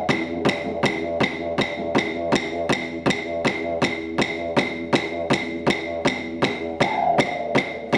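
Didgeridoo playing a steady drone while clapsticks beat an even rhythm of about four strikes a second.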